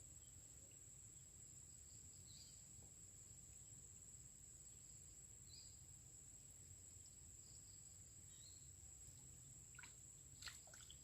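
Near silence: faint outdoor swamp ambience with a steady, high-pitched insect trill and a few faint short chirps every few seconds. A few faint clicks come near the end.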